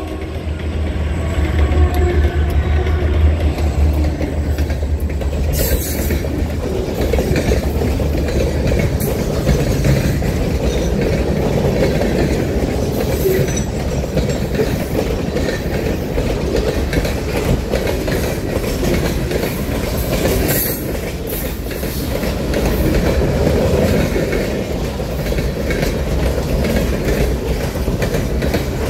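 Reading Blue Mountain & Northern freight train passing close by. The trailing diesel locomotives' engines hum loudly for the first few seconds, then boxcars roll past with steady wheel-and-rail noise, clattering over rail joints with a few sharp clicks.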